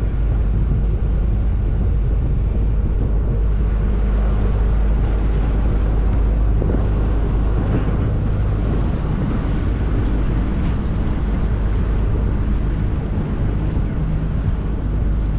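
Boat engine running steadily, a constant low hum, with wind buffeting the microphone.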